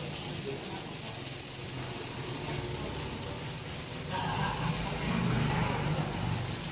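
A motor vehicle engine running over steady street noise, growing louder from about four seconds in as it comes closer.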